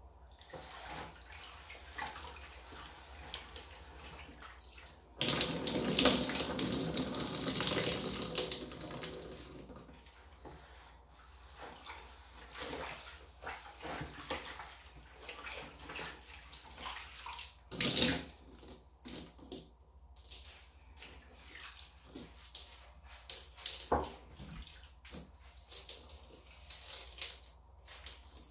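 Water from a tap running and splashing into a plastic garbage can in a bathtub, starting suddenly about five seconds in and running for several seconds, followed by scattered smaller splashes and a couple of sharper knocks.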